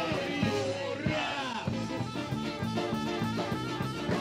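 A band playing upbeat ethno-rock with trumpet, electric bass guitar and drum kit over a steady beat, with some sliding trumpet notes.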